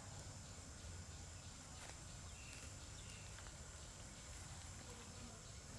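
Faint outdoor ambience: a steady high-pitched drone and a low rumble, with a couple of faint short chirps in the middle. The monkeys make no clear sound.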